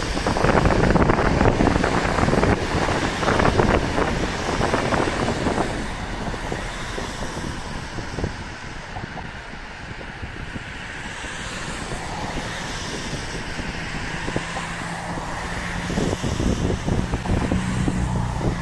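Electric passenger train passing beneath and running away down the line. Its rolling noise is loud for the first few seconds, then fades, with wind on the microphone. Near the end the noise rises again with a low steady hum.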